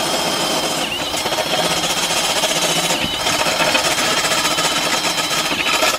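Milwaukee cordless drill running a step bit through quarter-inch steel plate under hand pressure: a steady motor whine over the grinding chatter of the bit cutting, enlarging the hole to over half an inch without smoking.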